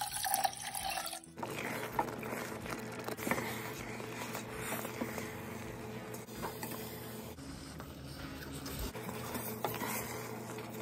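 Water poured from a glass measuring cup into a pot of rice and coconut milk for about the first second. Then a spoon scrapes and stirs thick, sticky glutinous rice against the pot, with soft background music under it.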